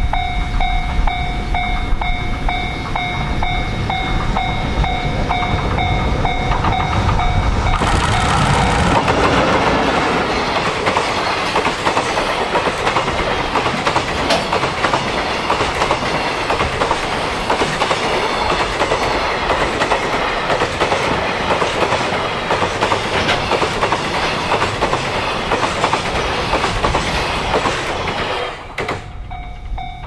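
A level-crossing warning bell rings in an even, pulsing tone. About eight seconds in, a freight train hauled by a JR Freight EF64 1000-series electric locomotive begins passing close by, and its long string of Koki container wagons runs over the rails for about twenty seconds. The train noise drowns out the bell and ends sharply near the end.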